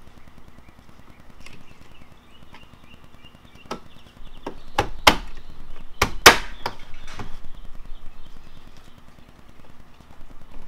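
Plastic trunk side trim panel of a BMW E46 being pressed and pushed back into place by hand. About seven sharp snaps and knocks come in a cluster starting about four seconds in, the loudest two about a second apart.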